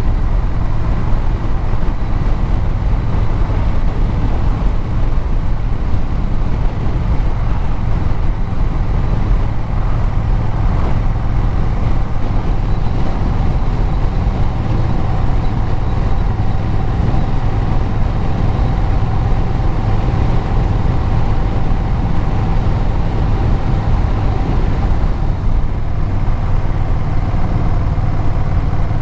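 A vehicle's engine and exhaust running steadily while under way, with road noise.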